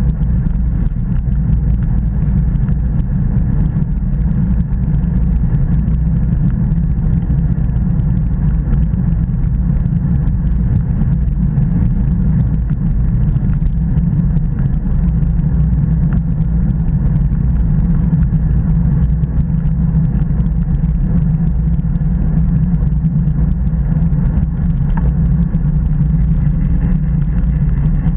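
Steady low rumble of wind buffeting a bike-mounted action camera's microphone at about 30 km/h, with road-bike tyre noise on asphalt underneath.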